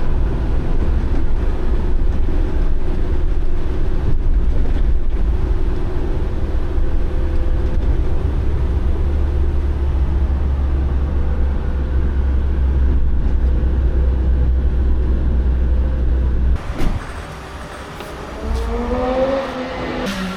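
Cabin noise inside a moving van: a steady low drone of engine and road noise. It cuts off suddenly near the end to something quieter, with a brief sliding pitched sound.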